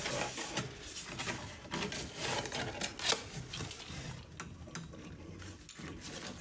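Irregular small clicks and rattles of a padlock and lockout hasp being handled and fitted onto a consumer unit's main switch.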